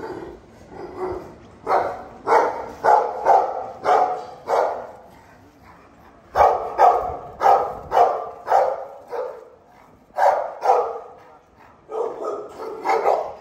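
A dog barking in runs of quick barks, about two to three a second, with short pauses between the runs.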